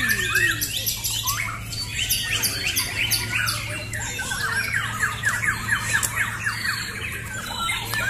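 Several caged white-rumped shamas singing at once in a songbird contest, their whistled phrases overlapping, with rapid runs of repeated notes.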